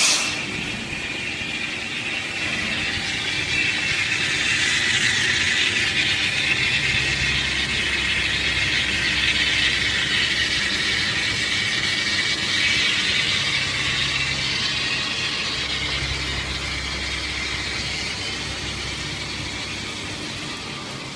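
Steady workshop machinery noise: a broad hiss with a low hum that comes in for a few seconds twice, about a third of the way in and again past the middle.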